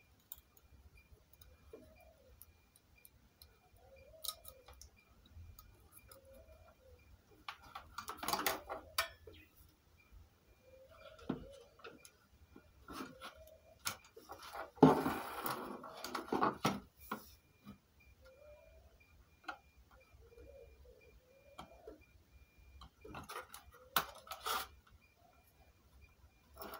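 Hands handling a home theatre unit's plastic front panel and small circuit boards: scattered clicks, rubbing and clattering, loudest about fifteen seconds in, with more around eight and twenty-four seconds in. A faint, fast, regular ticking runs underneath.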